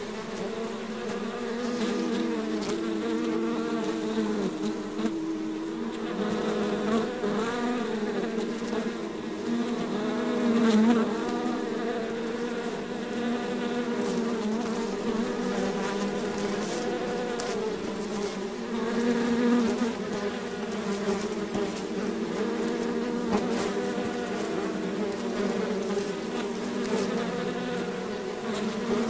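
Many bees buzzing together in a steady drone of overlapping hums, each wavering up and down in pitch, swelling briefly louder twice.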